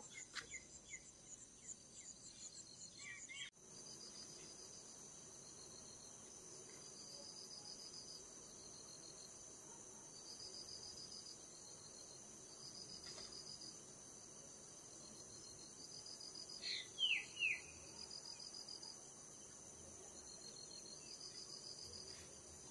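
Crickets and other night insects trilling steadily, one call pulsing every second or two. About seventeen seconds in, three quick high calls fall in pitch, louder than the chorus.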